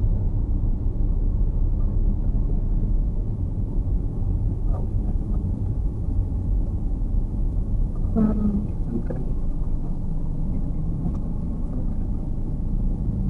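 Steady low rumble of a car's engine and tyres heard from inside the cabin while driving. About eight seconds in, a brief pitched sound rises above it.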